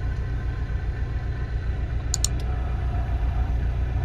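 Cabin sound of a Chevrolet Monza 2.0 EFI on the move: steady low engine and road rumble, with a few short faint clicks about two seconds in.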